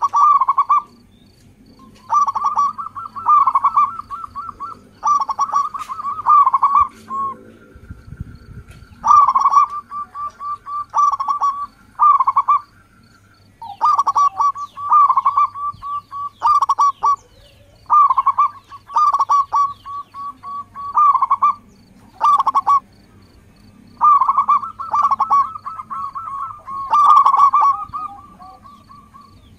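Zebra doves (perkutut) cooing: phrase after phrase of quick, rolling coos, each lasting a second or so, with short pauses between.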